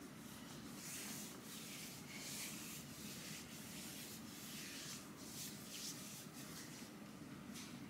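Faint, soft rubbing and rustling of hands working over fabric and skin: a string of short, irregular swishes about a second apart.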